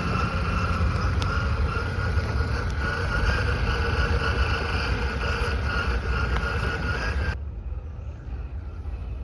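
RC crawler's Hobbywing 1800kv brushless motor and gear drivetrain whining steadily as the truck drives. About seven seconds in the whine stops abruptly, leaving quieter outdoor background noise.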